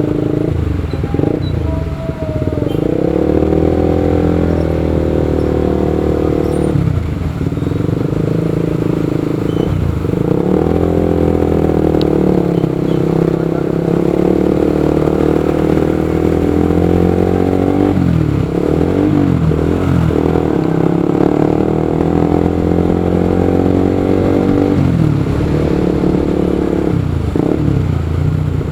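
Motorcycle engine running on the move, its pitch rising and falling several times as it speeds up and slows down.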